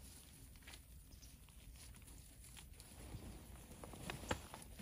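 Faint rustling of leaves and stems as garden plants are handled and pulled from a raised bed, with a few sharper clicks or snaps about four seconds in.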